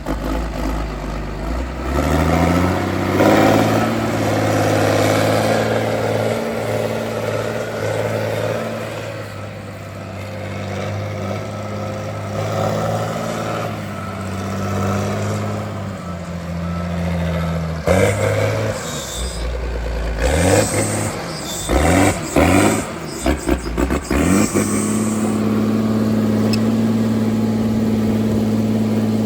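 Tigercat 630D log skidder's diesel engine running, its pitch rising and falling as it is revved, with steady stretches between and a quick run of pitch changes about two-thirds of the way through.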